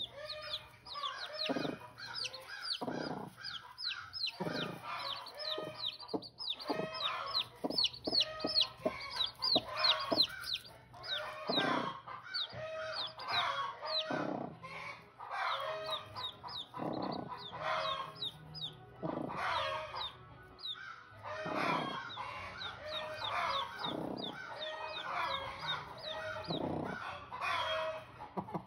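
Newly hatched chicks peeping constantly in short, high, falling chirps, over repeated clucking and calling from chickens.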